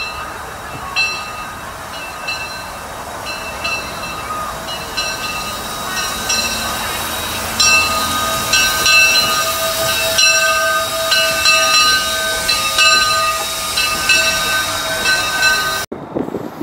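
A steam locomotive's bell ringing in a steady rhythm over a steady hiss of steam. The sound cuts off suddenly near the end.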